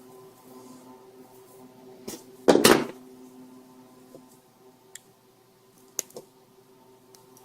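Tools and cable being handled on a work surface during wire stripping: one short loud clatter about two and a half seconds in, then a few light clicks, over a faint steady hum.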